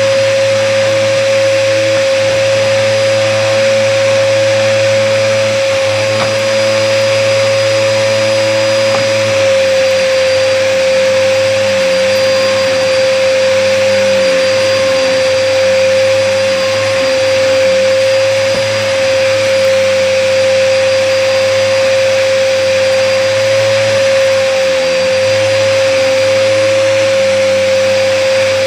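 Hoover vacuum cleaner running steadily with a strong high motor whine, which dips slightly in pitch about ten seconds in. The vacuum is clogged.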